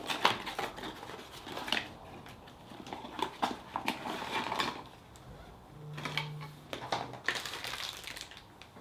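Plastic packaging rustling and small plastic key-case parts clicking as they are handled, with a brief low hum about six seconds in.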